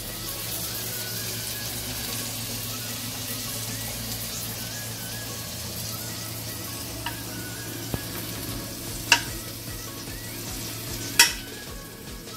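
Onion slices sizzling on a hot electric contact grill, a steady frying hiss, with two sharp metal clinks of a fork about 9 and 11 seconds in as the food is moved onto a plate.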